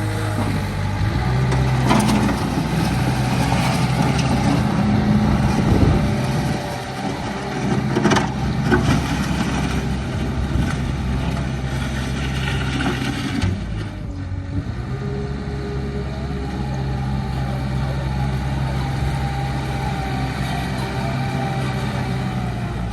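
Small bulldozer's engine running steadily under work. Its pitch dips briefly about two-thirds of the way through and then holds steady, with a few sharp knocks in the first half.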